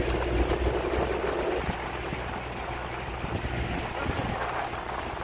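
A vehicle's engine running steadily with wind and road noise as it drives along a rough dirt track.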